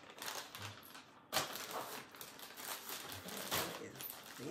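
Plastic packaging crinkling and rustling as it is handled and opened, with sharper crackles about a second and a half in and again near the end.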